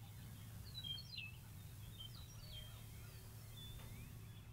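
Faint background of a few short bird chirps and twitters, about a second in and again over the following couple of seconds, over a low steady hum.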